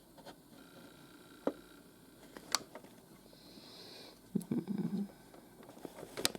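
Buttons on a Maxx Digital weather radio clicking as they are pressed to step through its menu: three separate sharp clicks, with a short soft low rustle about two-thirds of the way through.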